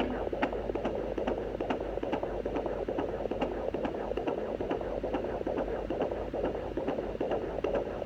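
Fetal heartbeat through a handheld fetal Doppler's speaker: a fast, rhythmic whooshing pulse at about 140 beats a minute.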